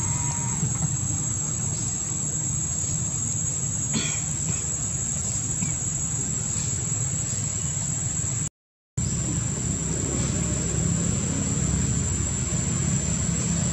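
Outdoor ambience: a steady high-pitched insect drone over a continuous low rumble. The sound cuts out for about half a second a little past the middle, then resumes.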